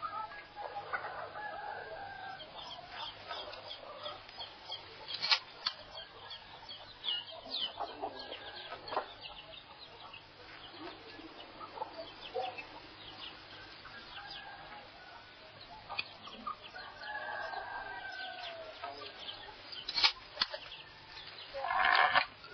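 Chickens clucking, with scattered short clicks and knocks throughout.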